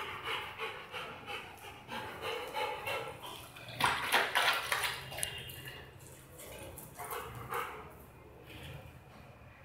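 Rottweiler panting in quick rhythmic breaths, then lapping water from a plastic bucket in a louder wet stretch about four seconds in, before panting briefly again.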